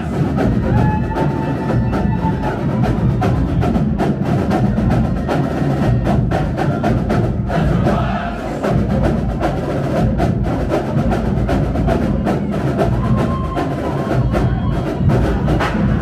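A marching band's sousaphone section playing loud, low brass music together, with sharp percussive hits running through it.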